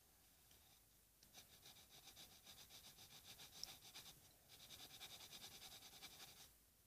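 Faint graphite pencil scratching on paper in quick back-and-forth strokes, about five a second, as it shades a small area. There are two runs with a short break a little past the middle.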